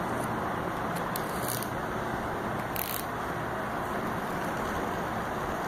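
Steady background noise with a few faint, brief scratching sounds.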